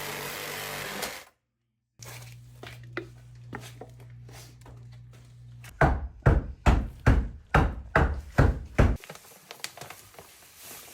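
A steady mechanical rush cuts off about a second in; after a pause comes a low steady hum with scattered light clicks, then about six seconds in a run of about nine heavy knocks, roughly three a second, like hammering on a hard surface.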